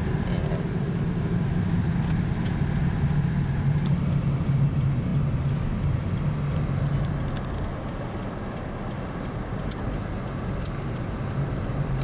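Steady low hum of a car's engine and running gear heard from inside the cabin, with a few faint clicks.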